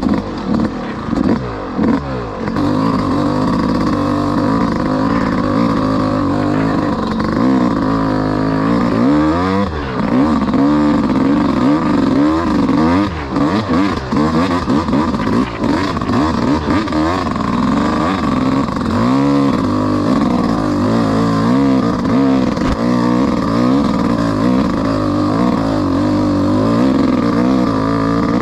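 Yamaha YZ250X two-stroke dirt bike engine revving up and down continuously under load on a steep, rough uphill trail, heard from on the bike.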